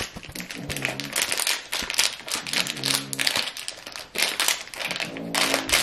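Crinkling of a foil-lined sachet as hands squeeze and work it, emptying its contents into a plastic tray, with rapid irregular rustles throughout.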